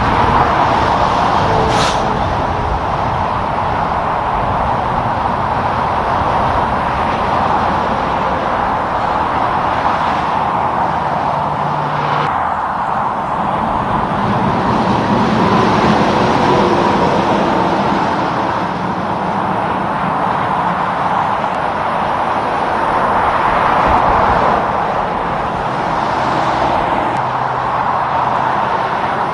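Steady road traffic with trucks passing: tyre and engine noise that swells and fades as each vehicle goes by, with a couple of brief sharp sounds in between.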